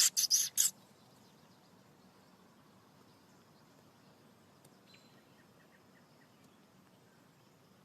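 A person making four quick hissing "psst" calls to coax a cat over, then faint steady background.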